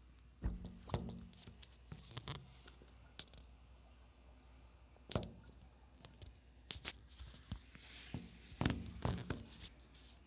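Handling noise from a phone being moved while filming: irregular knocks, clicks and rustles, the sharpest about a second in.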